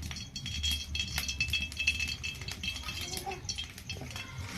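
Cooking oil heating in a kadai over a wood fire, crackling and spitting with many small sharp clicks and light clinks.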